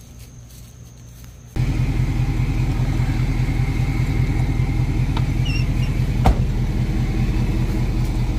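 Pickup truck engine idling steadily, cutting in abruptly about one and a half seconds in after faint quiet ambience. A single sharp knock about six seconds in.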